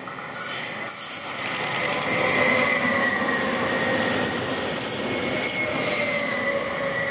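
Electric multiple-unit passenger train passing close by: wheels running on the rails with a steady high whine, growing suddenly louder about half a second in and holding as the train goes past.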